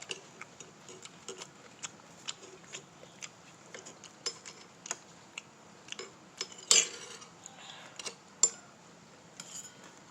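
Utensils clinking lightly against dishes: scattered short clicks, with a louder clatter a little under seven seconds in and a sharp clink about a second and a half later.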